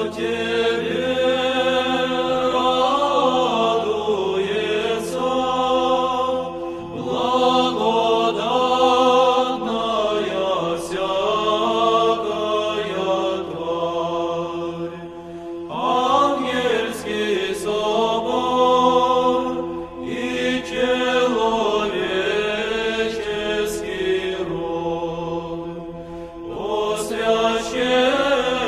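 Church chant: a slow sung melody over a steady held drone note, in long phrases with short breaks about halfway through and near the end.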